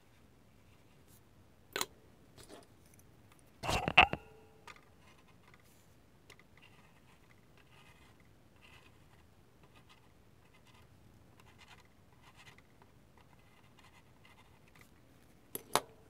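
Small hard objects being handled on a workbench: a single click, then a louder clatter with a brief ring about four seconds in, faint scratching and rubbing, and a couple more clicks near the end.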